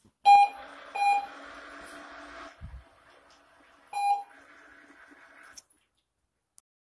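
Remote-controlled dog treat dispenser beeping three short times, twice close together and once about three seconds later. After the first two beeps its motor whirs for about two seconds, and after the last beep it whirs again more briefly, dispensing treats.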